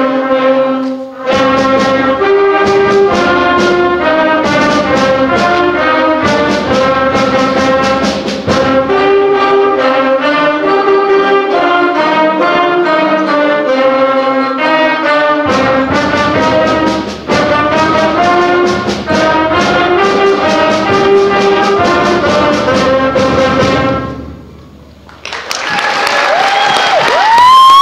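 School band of saxophones and brass playing a lively piece with sharp accented hits, which ends about 24 seconds in. Audience applause follows, with a whistle near the end.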